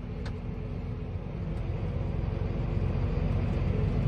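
Tractor engine running steadily, heard from inside the cab as a low rumble with a steady hum, slowly growing louder.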